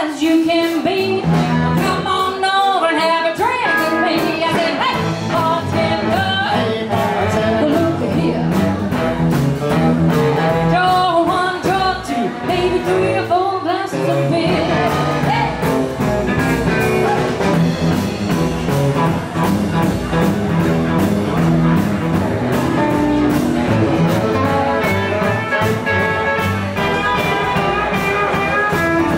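A rock and roll band plays live with a singer: electric and acoustic guitars, upright bass, drums and saxophone, to a steady beat. The bass and drums drop out briefly about halfway through.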